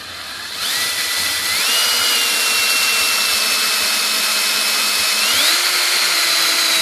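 Power drill boring through a piece of very hard wood under heavy hand pressure, the bit struggling. The motor whine starts about half a second in and steps up in pitch twice.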